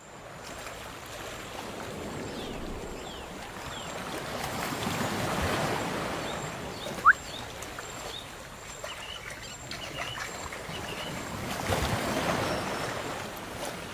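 Water of a shallow forest creek running and splashing, swelling twice. Short high chirps come and go over it, and one sharp rising whistle sounds about halfway through.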